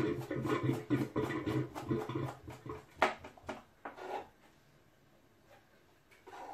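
Kitchen knife chopping fresh dill on a plastic cutting board: a fast, even run of chops, then a few single knocks and the chopping stops.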